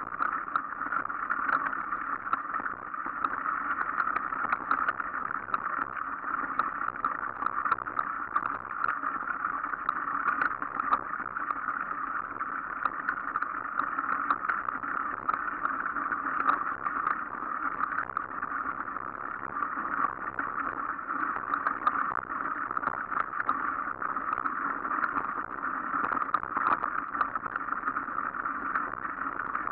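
Mountain bike rolling along a dirt forest trail strewn with dry leaves: a steady rushing noise of tyres and wind, with frequent small rattles and ticks.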